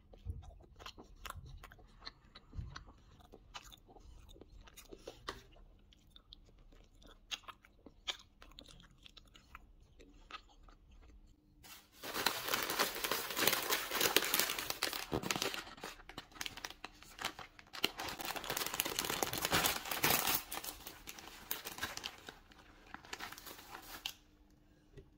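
Thin plastic carrier bag and bread wrappers rustling and crinkling loudly as hands rummage in the bag, starting about halfway through and stopping shortly before the end. Before that there are only faint scattered clicks.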